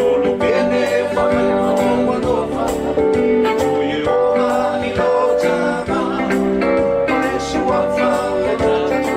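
Live Samoan song: strummed acoustic guitar accompanying singing, in a steady rhythm.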